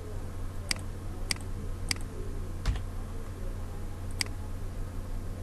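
Clicks of a computer mouse and keyboard while objects are selected and erased in CAD software: about five sharp, separate clicks at uneven intervals, over a steady low hum.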